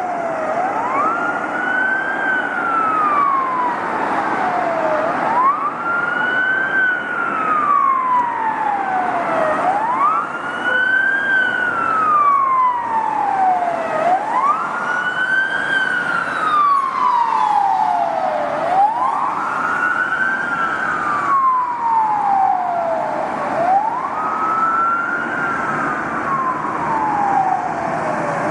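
Police car siren sounding a wail: each cycle rises quickly in pitch and then falls slowly, repeating about every four and a half seconds, six times over.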